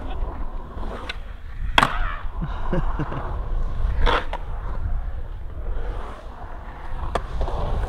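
Skateboard wheels rolling on a concrete skatepark bowl, a steady low rumble, broken by a few sharp clacks of the board hitting the concrete, the loudest about two and four seconds in.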